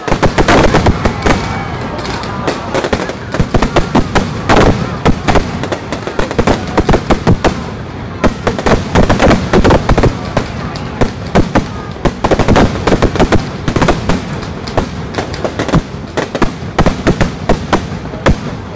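Fireworks display: a rapid, continuous barrage of bangs and crackles.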